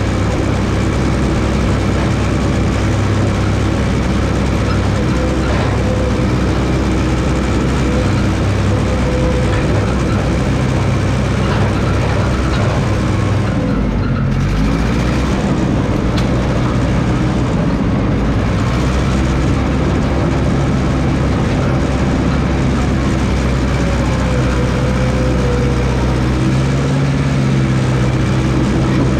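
Massey Ferguson 300 crawler dozer's engine running steadily while working dirt, its speed dipping briefly and coming back up about halfway through.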